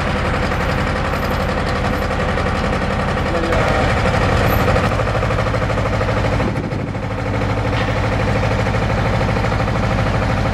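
Tracked geotechnical drilling rig running under load while drilling a borehole, its engine and hydraulics making a steady, loud mechanical drone. The note rises and gets louder about three and a half seconds in, then briefly drops near seven seconds.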